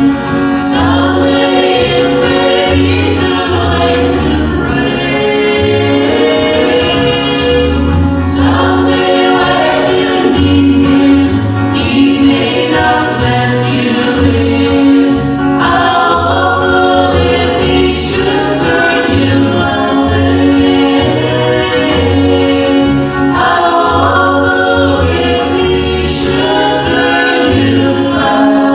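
A gospel vocal group singing in harmony with instrumental accompaniment, a rhythmic bass line and a held tone underneath the voices.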